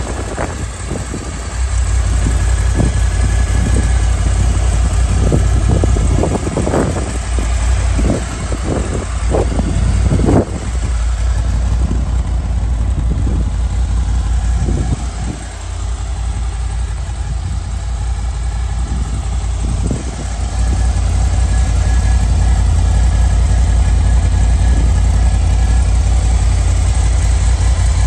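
Honda VFR800's V4 engine idling steadily, with irregular low thumps over roughly the first fifteen seconds.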